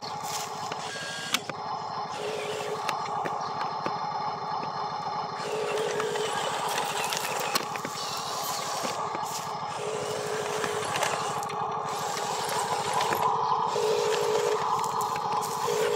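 Small electric motors and gearbox of a Huina radio-controlled dump truck whining as the tipper bed is raised, the whine coming in stretches of about a second and switching between a lower and a higher pitch, with a few light clicks.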